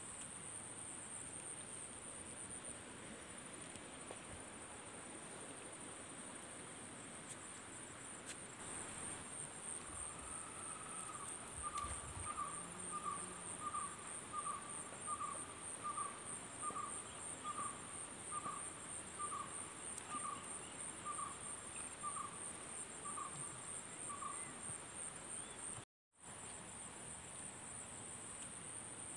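Insects trilling steadily in a fast, high, pulsing chirr, and through the middle a bird repeating one short note a little more than once a second. The sound drops out completely for a moment near the end.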